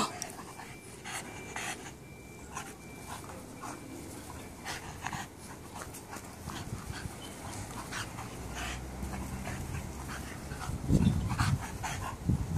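French bulldogs panting, with short rustles and clicks throughout. A louder low-pitched sound sets in about eleven seconds in.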